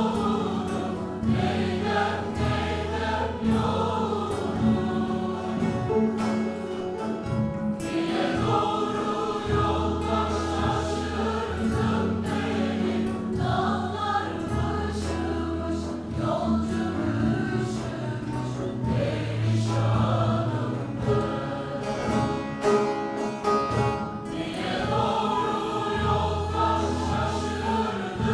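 A Turkish folk music choir singing a türkü together, with long held low notes underneath.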